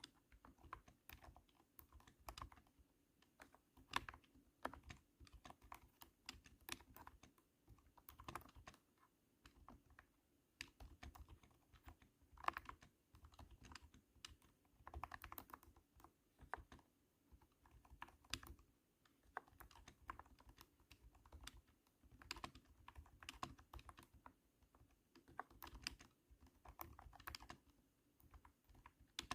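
Typing on a cat-shaped keyboard: thunky keystrokes in quick irregular runs, with short pauses between them.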